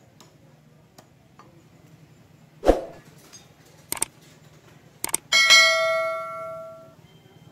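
A subscribe-button sound effect: a heavy thump, then two mouse clicks and a bell ding that rings and fades over about a second and a half.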